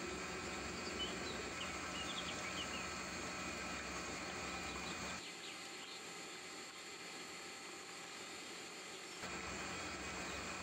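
Steady background hiss with a faint hum and a few faint high chirps in the first three seconds. It abruptly turns quieter about five seconds in and abruptly comes back about four seconds later.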